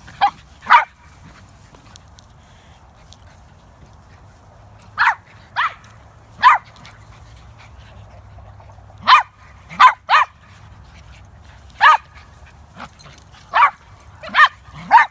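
Small dogs yapping in play while they wrestle: about a dozen short, sharp, high-pitched barks at irregular intervals, with a pause of a few seconds early on and the barks coming faster near the end.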